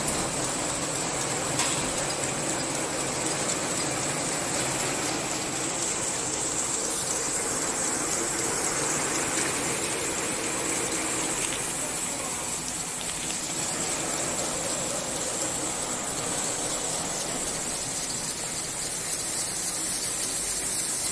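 Tablet foil-wrapping machines and their conveyor line running: a steady mechanical hiss with a constant thin high whine over it.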